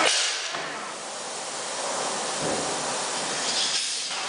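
Steady high-pressure hissing rush of a polyurea spray gun fed by a Graco Reactor E-XP2 proportioner, firing a test shot. It is loudest at the start, dips, and swells again near the end.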